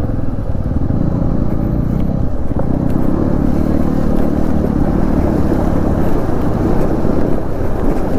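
Yamaha motorcycle engine running steadily as the bike wades through a shallow river, with water splashing around the wheels.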